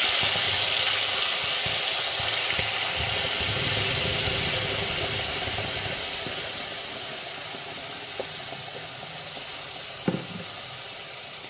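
Wet ground onion-tomato purée sizzling hard in hot oil in a kadhai, just after it hits the cumin-and-asafoetida tempering. The sizzle slowly dies down as the purée settles, with a light knock near the end.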